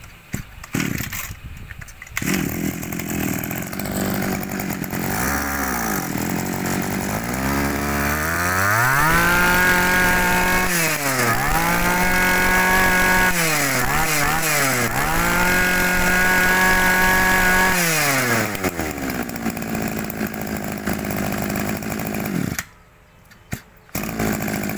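Zenoah Komatsu 26cc two-stroke brush cutter engine running: idling, blipped once, then revved to high speed three times, each run held for a few seconds, before settling back to idle. The engine note cuts out briefly near the end.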